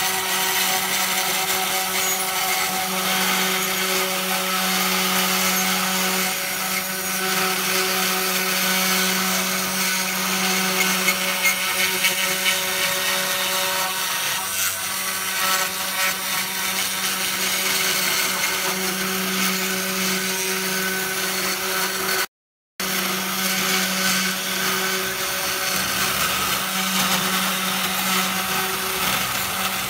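Desktop CNC router's spindle running steadily as its bit mills grooves into a painted wooden board: a constant motor hum under a dense cutting hiss. The sound drops out for a split second about three-quarters of the way through.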